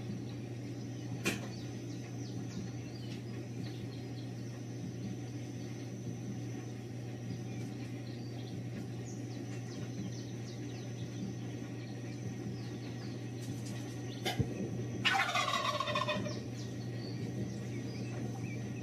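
Male wild turkey gobbling once late on: a rapid rattling call of about a second, falling in pitch. Sharp clicks come before it, over a steady low hum.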